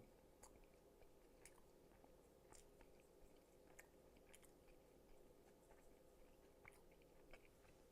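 Faint chewing of coleslaw close to the microphone, with soft wet mouth clicks scattered throughout over a low steady room hum.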